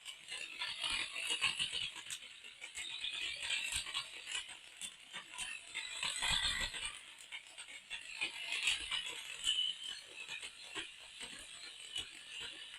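Plastic toy parts and packaging being handled: a dense, uneven run of small clicks, crackles and rattles.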